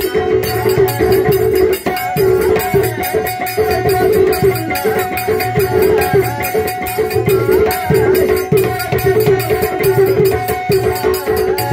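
Instrumental passage of a Marathi devotional folk song, with no singing: tabla-like hand drums keep a steady beat under sustained held notes.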